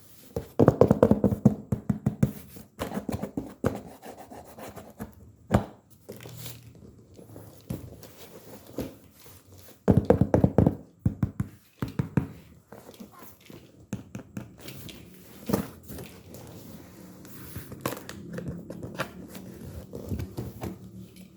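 Packaging being torn open and handled: two bursts of rapid tearing and crinkling, one about half a second in and one around ten seconds in, with scattered knocks and rustles between.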